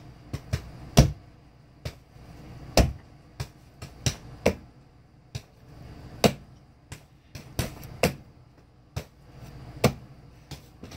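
Irregular sharp knocks and taps, some with a dull thud, coming roughly one or two a second in no steady rhythm.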